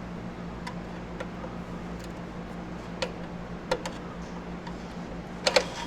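Scattered light clicks and taps of hand work on the go-kart's throttle cable and linkage, the sharpest pair about five and a half seconds in, over a steady low hum.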